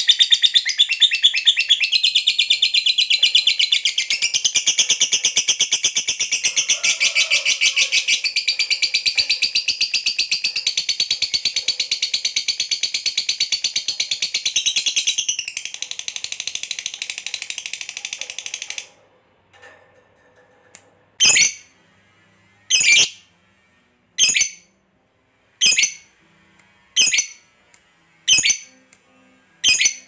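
Lovebird giving a long 'ngekek' chatter: a rapid, unbroken, high-pitched trill that runs for about nineteen seconds and then breaks off. It is followed by single sharp chirps about every second and a half.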